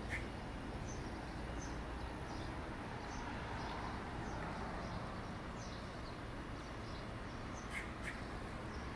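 Small birds chirping, short high chirps repeating every half second to a second over a steady background hum, with two sharp clicks near the end.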